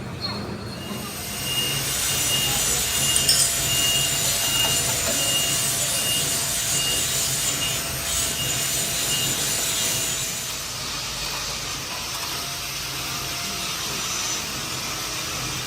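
Machine tool cutting metal on a crankshaft, a steady rasping, scraping cutting noise with faint whining tones. It swells about a second in and eases a little after about ten seconds.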